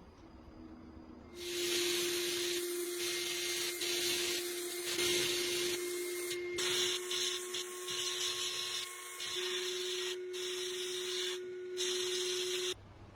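Pressurised spray hissing loudly with a steady whistling tone, broken by three short pauses and cutting off suddenly near the end.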